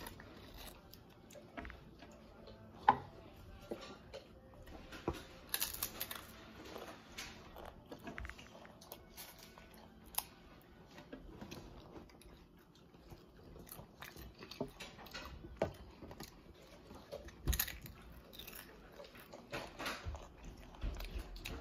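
Crunchy potato chips being bitten and chewed, giving irregular crisp crunches and crackles, with one much louder sharp snap about three seconds in.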